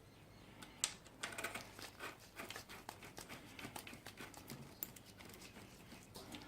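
Faint, irregular metallic clicks and taps of a 10mm socket wrench working a rocker-cover bolt loose on a motorcycle engine.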